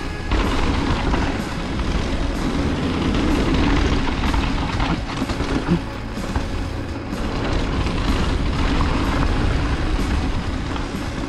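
Mountain bike descending fast on a packed-dirt trail: a steady rush of tyre noise on dirt and loose stones, with frequent knocks and rattles as the bike goes over bumps.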